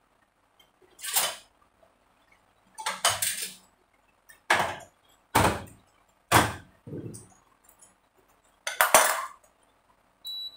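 A series of about seven short, sharp noises, roughly a second apart, followed by a brief high beep near the end.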